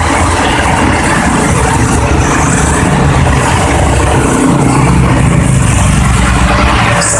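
Motor vehicle engines running in road traffic, a steady low rumble.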